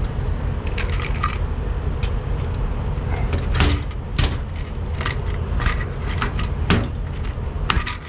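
Hand pop-rivet gun being squeezed to set the last rivet in a toolbox latch: irregular sharp clicks and snaps, the loudest a few seconds in, over a steady low rumble.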